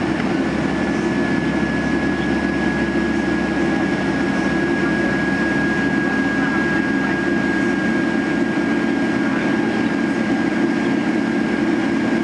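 Steady cabin noise inside a Boeing 737-800 climbing after takeoff: the CFM56 turbofan engines and rushing air make a continuous low rumble, with a thin high whine above it that sinks slightly in pitch.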